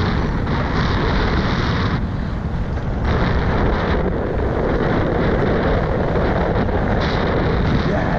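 Loud wind rushing over a camera microphone while a mountain bike is ridden along a trail, shifting in strength every second or so.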